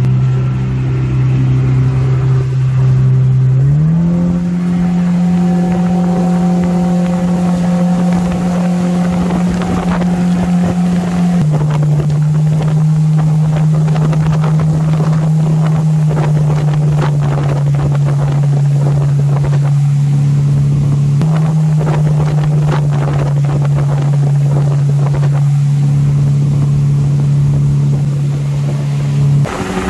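Mercury outboard with a water-jet drive pushing a planing boat at speed: a steady engine note that climbs about four seconds in as the boat speeds up, then holds, dropping slightly twice later on, with wind and water rush over it.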